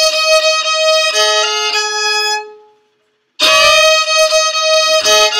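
Fiddle bowed in a double-stop phrase, fingered notes over the open A string droning beneath them. The playing stops about two and a half seconds in and starts again a second later with a note slid up into pitch.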